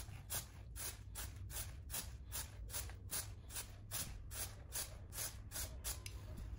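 Aerosol can of chain cleaner spraying onto a motorcycle drive chain in short hissing bursts, about three a second.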